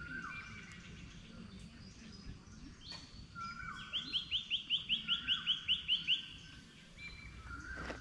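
Several forest birds singing. One gives a short whistle that drops at its end, repeated every second or so. In the middle, another sings a fast run of about a dozen bright notes, some six a second, louder than the rest.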